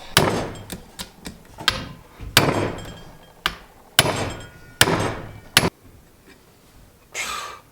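Hammer blows on a hand impact screwdriver, working at a seized vise jaw screw: about half a dozen sharp strikes roughly a second apart, each ringing briefly, with a few lighter taps between them.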